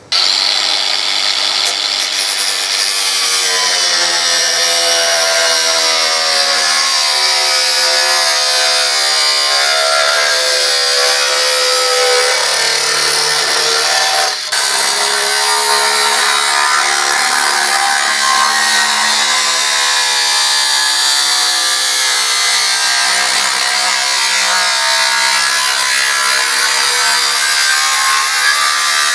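Ryobi angle grinder with a cut-off disc cutting through the steel blade of a handsaw: a steady, loud grinding with a motor whine that wavers in pitch as the disc bites. It breaks off for a moment about halfway, then carries on.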